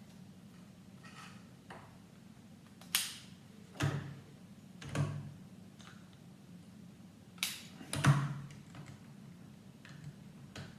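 Lego wheels being pushed onto the car's axles: a handful of sharp plastic clicks and knocks about a second apart, with faint handling of the pieces between them.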